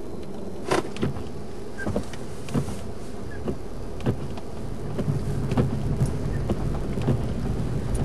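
Car driving on a snow-covered road, heard from inside the cabin: a steady low rumble of road and engine noise with irregular sharp clicks and knocks, which come more often in the second half.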